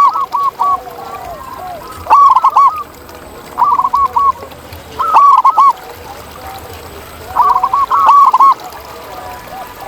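Zebra doves cooing: five loud bursts of quick, arching staccato notes, each under a second and spaced about one and a half to two seconds apart, with fainter, lower calls between them.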